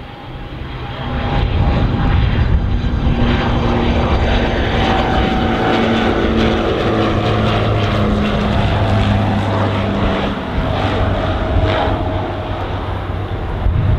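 Fairchild Swearingen twin-turboprop with Garrett TPE331 engines on final approach, its propellers and engines droning with a whine that slowly falls in pitch as it passes. The sound swells over the first two seconds, then holds steady and loud as the plane flares to land.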